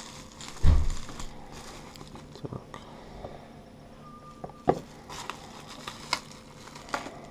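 Bubble-wrap packaging handled and unwrapped by hand: light crinkling and crackling, a dull thump about a second in, and several sharp clicks and taps as small hard plastic lures are set down on the wrap.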